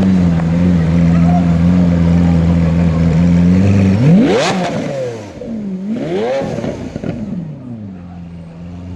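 Lamborghini Aventador's V12 idling with a steady hum, then revved twice, about four and about six seconds in, each rev rising quickly in pitch and falling back before it settles to idle again.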